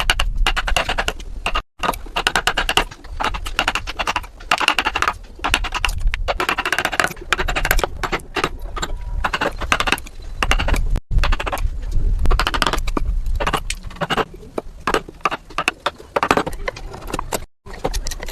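Hand woodworking tools working wood: quick, continual scraping and clicking strokes. The sound drops out abruptly a few times, at about two seconds in, around eleven seconds and near the end.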